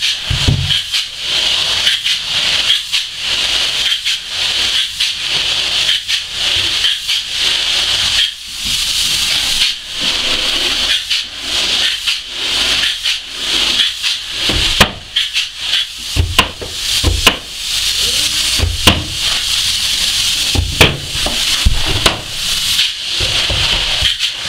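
Spray foam gun hissing as closed-cell polyurethane foam is sprayed on in layers, in repeated bursts with brief breaks a little more than once a second. A few low thumps come in the second half.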